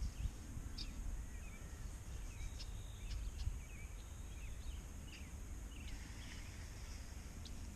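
Birds chirping faintly and intermittently over a steady low rumble of wind on the microphone and a high outdoor hiss.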